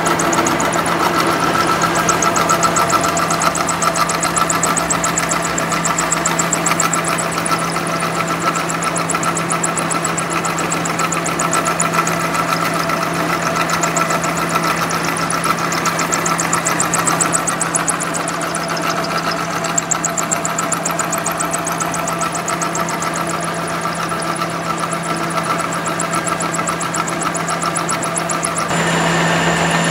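Milling machine running and cutting a steel shaft held in a dividing head under coolant: a steady motor and gearbox hum with a fast, fine high-pitched rattle from the cut. Near the end the sound shifts and a thin high whistle comes in.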